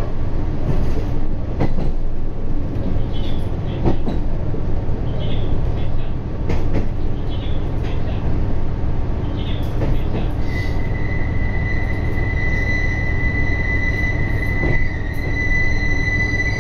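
KiHa 121 diesel railcar heard from inside the cab, a steady running rumble with scattered clacks from the wheels, as it slows into a station. About two-thirds of the way through, a steady high brake squeal starts and holds to the end.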